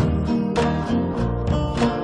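Instrumental music: acoustic guitar strumming and plucking with a bass line, in a steady rhythm.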